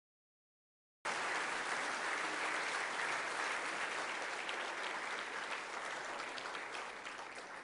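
Audience applauding, a dense patter of many hands clapping. It cuts in suddenly about a second in after dead silence and dies down near the end.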